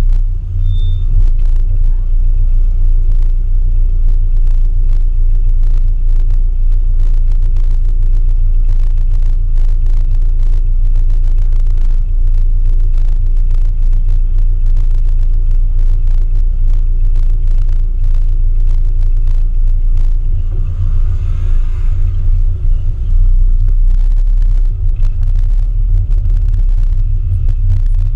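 Classic Mini's A-series four-cylinder engine rumbling low at a crawl in slow traffic, picked up by a camera mounted on the car, with many small knocks and rattles over it.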